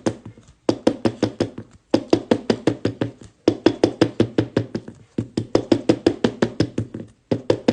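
Rapid light knocking, about six or seven knocks a second, in short runs of around a second and a half with brief pauses between them.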